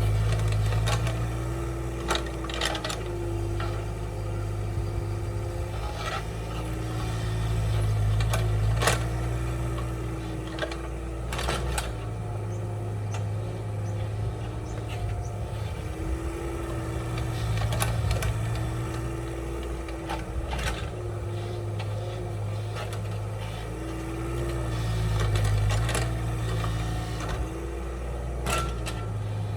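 Kubota compact excavator's diesel engine running, swelling and easing under load every few seconds as the machine works, with occasional sharp metallic clanks.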